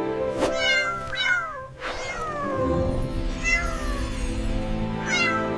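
Cats meowing, a few drawn-out calls that slide down and up in pitch, over background music with steady held tones.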